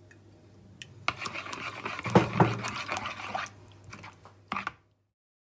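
Metal spoon stirring wet grated cucumber salad in a bowl: a wet stirring noise with clicks of the spoon, loudest about two seconds in, then a couple of last clicks before the sound cuts off.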